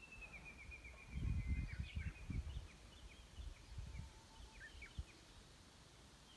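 Small birds singing: a long run of notes sliding slowly down in pitch, then scattered short chirps. Low buffeting on the microphone, strongest between about one and two and a half seconds in.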